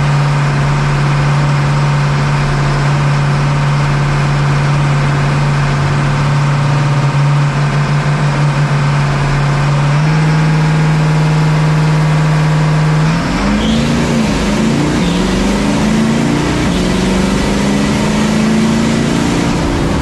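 7.3L Powerstroke turbo-diesel V8 race truck heard from inside the cab, held at a steady raised engine speed on the start line, stepping up slightly about ten seconds in. About thirteen seconds in it launches, the pitch climbing and dropping back several times as it shifts up through the gears.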